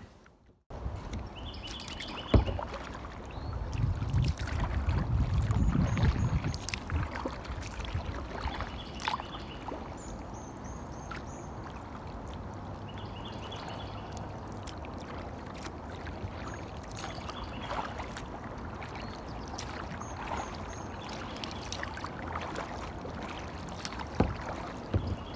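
Water lapping and trickling against a kayak hull on a slow river, with wind rumbling on the microphone for a few seconds near the start. Birds chirp now and then, and there are a few sharp knocks.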